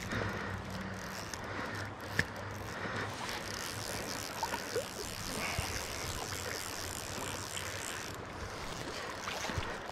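Steady rush of flowing creek water, with wind on the microphone and a single sharp click about two seconds in.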